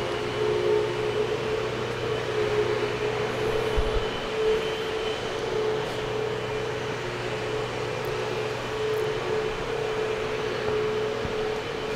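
Vacuum cleaner running steadily: an even motor drone with a constant hum under it.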